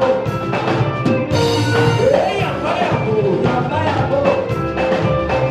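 Live praise-and-worship music with a steady drum-kit beat, instruments and singing.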